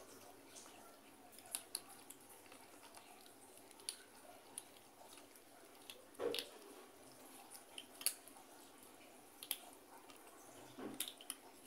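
Cats eating dry kibble from a plastic bowl: faint, irregular crunches and clicks of pellets being chewed and knocked about, the loudest about six seconds in.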